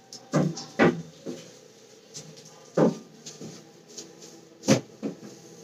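Irregular sharp knocks and taps, about six of them and loudest near the end, as a duster is worked against a metal window grille.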